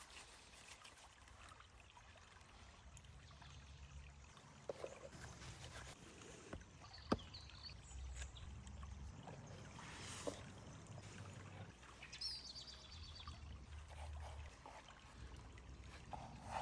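Faint running or trickling water, with one sharp click about seven seconds in.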